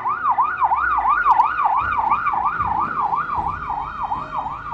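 Ambulance siren in a fast yelp, sweeping up and down about three times a second, as the ambulance van passes close by, with a low engine and road rumble underneath.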